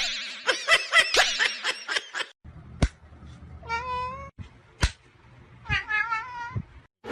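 A cat meowing twice in the latter half, each meow a drawn-out, wavering call, with a couple of sharp taps around them. Before that, about two seconds of busy, high, squeaky calls with clicks.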